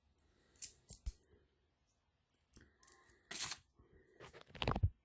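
Small metal paper fasteners clinking and rattling as they are handled and stirred in their box: a few sharp clicks, then two louder rattles, the loudest a little past the middle and another near the end.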